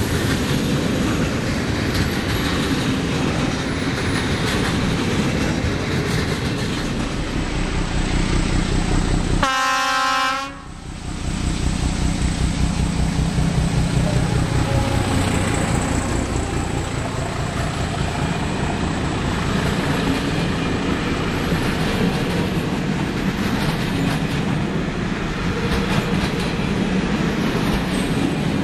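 Freight trains passing close on the track: steady rumble and clatter of wagon wheels over the rails. About nine and a half seconds in, a locomotive horn sounds one short, steady blast. Then a second train's locomotive goes by with a louder rumble, and its wagons rattle past.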